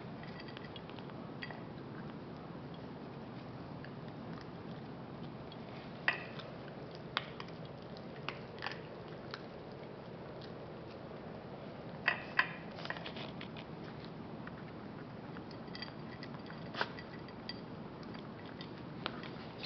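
Small white Coton de Tulear dog eating from a ceramic dish: scattered sharp clinks and crunches of teeth and food against the dish, the loudest a pair about twelve seconds in, over a steady low background hiss.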